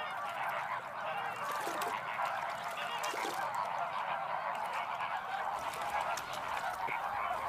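A large colony of greater flamingos calling together: a dense, steady chatter of many overlapping goose-like honks.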